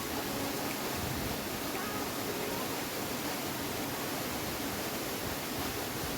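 Steady rushing roar of a waterfall.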